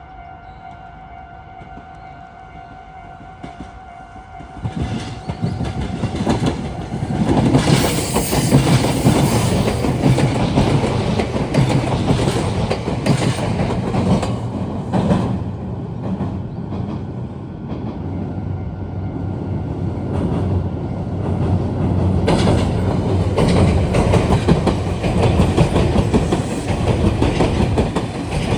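A level-crossing warning bell rings in two steady tones. From about five seconds in it is drowned out by a Meitetsu electric train passing close by, its wheels clattering over the rail joints, loud and continuous.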